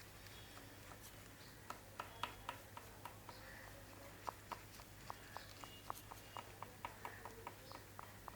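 Oil pastel stick tapping and stroking on paper while drawing short lines: a run of faint short ticks, a few a second, starting about two seconds in, over a low steady hum.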